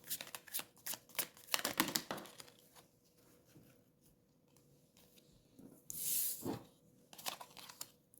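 Tarot cards being shuffled, a quick run of light flicking clicks for about two and a half seconds, then a pause, a single sliding swish about six seconds in, and a few more light clicks as cards are handled near the end.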